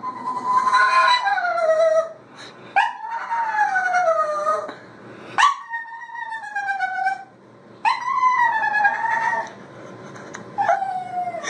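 Dog howling in about five long drawn-out calls, each sliding down in pitch, with short breaks between them.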